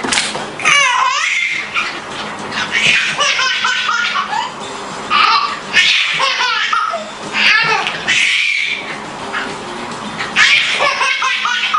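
A baby laughing in repeated bursts of high squealing giggles, each rising and falling in pitch.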